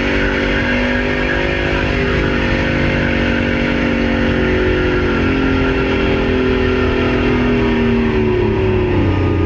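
Diesel engine in a runaway after its turbocharger blew apart, running flat out on its own oil: a loud, steady high engine note over a low rumble, its pitch sagging slightly in the last few seconds.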